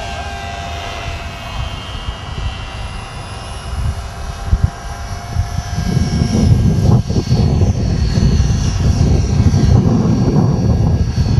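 Foam RC model airplane's motor and propeller whining in flight, the pitch drifting slowly up and down as it flies about. From about six seconds in, a loud low rumble covers it.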